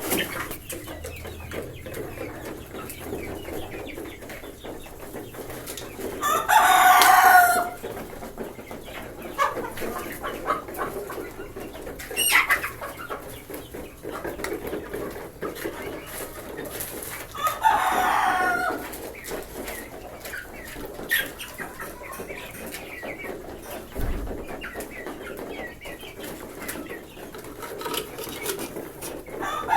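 A flock of desi chickens: hens clucking steadily while a rooster crows twice, each crow about a second and a half long and roughly eleven seconds apart, with a shorter squawk between them and another crow starting near the end.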